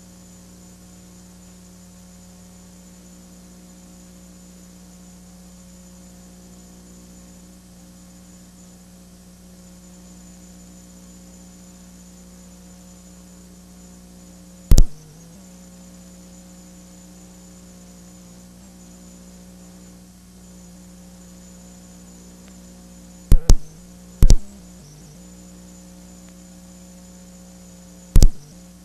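Steady electrical mains hum on the audio feed, with a few sharp, loud clicks: one about halfway through, two close together a little later, and one near the end.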